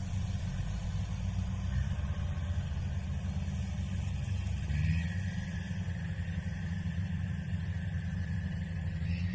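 Engine running with a steady low rumble, its pitch rising slightly about five seconds in.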